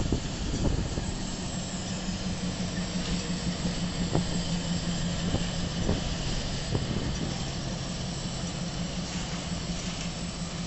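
Two diesel-electric freight locomotives running in tandem as they pass, a steady engine drone hauling a train of loaded hopper cars, with a few sharp clacks from the wheels over the rail joints in the first seven seconds.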